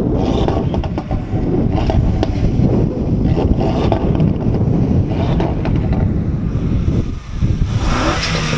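Car engine and exhaust running loud and steady.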